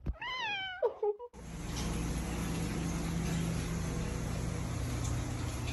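A cat's short meow that falls in pitch, then, about a second in, a steady hiss of background noise with a low hum under it.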